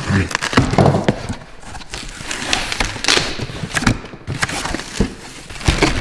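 A cardboard shipping box being unpacked by hand: a blade slitting the packing tape, then the flaps pulled open and the packing inside handled. Irregular clicks, knocks and scrapes of cardboard throughout.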